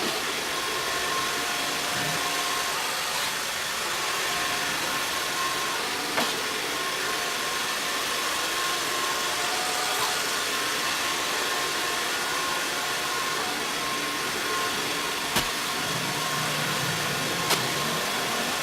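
Alfawise A6 robot vacuum running steadily, its suction fan giving an even whirring hiss with a faint whine, and a few sharp clicks scattered through it.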